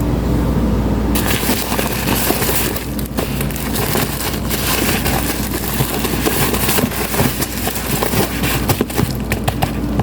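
Packaging being handled and opened, with crackling and rustling and many small sharp clicks, over a steady low hum.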